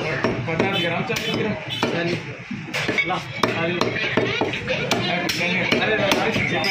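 A heavy butcher's cleaver chopping mutton on a wooden log chopping block, with repeated sharp chops at an uneven pace, about one or two a second.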